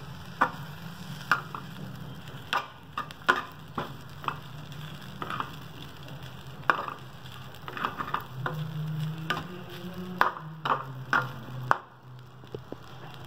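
Metal spatula scraping and knocking against a steel frying pan as flattened rice (poha) is stirred, in irregular strokes over a steady low hum. The stirring stops about a second before the end.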